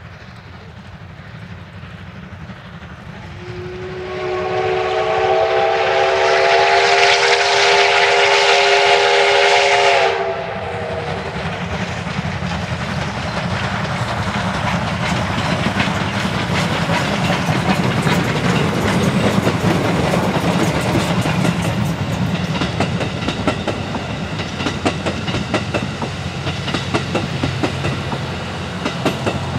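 D51 200 steam locomotive's whistle sounding one long steady blast of about six seconds, followed by the train running past with a rapid, continuous clatter.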